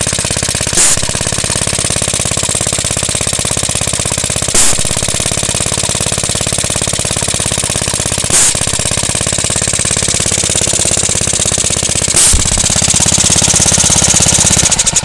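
Briggs & Stratton WMB single-cylinder washing-machine engine running steadily, driving an air pump, with a short sharp burst about every four seconds. It is shut off and cuts out at the very end.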